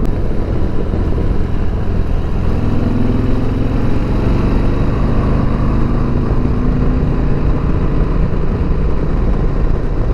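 2020 Harley-Davidson Sport Glide's V-twin engine running steadily while riding, with a broad haze of wind noise over the microphone; its pitch shifts a little a few seconds in.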